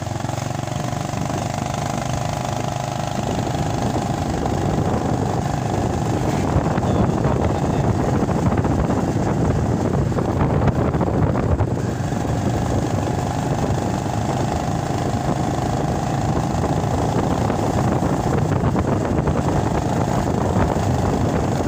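Small motorcycle engine running steadily while riding along a road.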